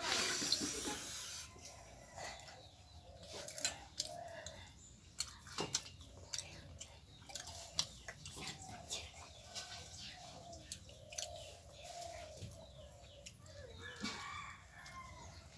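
Eating water rice (pakhala) by hand from a brass bowl: a wet slurp right at the start, then chewing and light clicks of fingers against the metal bowl. A hen clucks on and off in the background.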